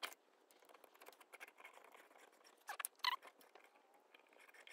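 Faint clicks and light metal clinks of a valve spring compressor being handled against a 125cc ATV cylinder head as it is set over the valve spring, with a few louder clinks, one briefly ringing, about three seconds in.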